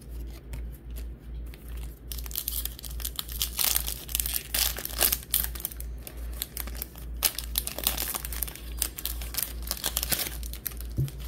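Foil wrapper of a Topps baseball card pack being torn open and crinkled while the cards are slid out. The crinkling picks up about two seconds in, with many sharp crackles, and dies down near the end.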